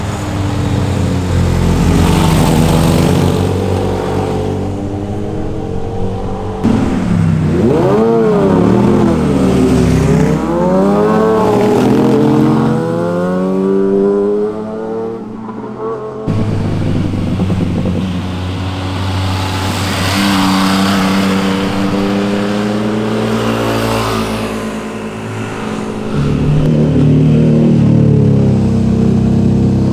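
A series of motorcycle engines revving through a tight bend, one bike after another. Their pitch sweeps up and down as the riders come off and back on the throttle, with the widest sweeps near the middle.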